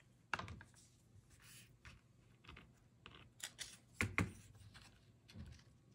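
Faint, scattered taps, clicks and rustles of paper cut-outs and a glue bottle being picked up and set down on a craft mat, with the loudest pair of knocks about four seconds in.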